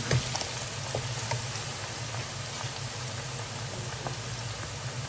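Carrot strips deep-frying in hot oil in a wok: a steady sizzle and bubbling. There are a few light clicks of the metal spatula against the pan in the first second and a half, the loudest right at the start.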